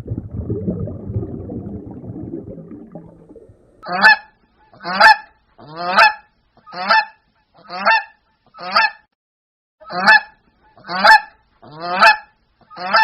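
Domestic waterfowl calling: ten loud, harsh calls, about one a second, beginning about four seconds in. They follow a few seconds of low, rough grunting.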